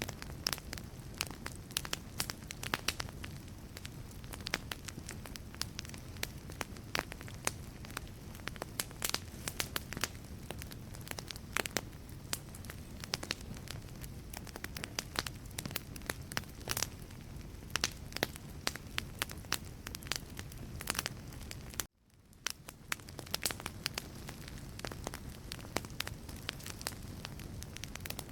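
Wood logs burning in a fireplace, crackling and popping with many sharp snaps over a steady low rumble of the flames. About three-quarters of the way through, the sound cuts out for a moment and fades back in.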